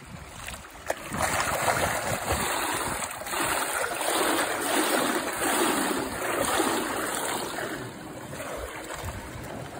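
Pool water splashing and churning as a swimmer in a mermaid tail kicks through it, with a sharp click about a second in. The water noise is loudest through the middle and dies down near the end.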